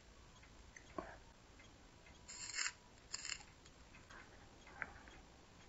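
Soldering iron melting flux-cored solder onto the top of an 18650 lithium-ion cell: two short hissing sizzles about two and a half and three seconds in, with a few light clicks around them.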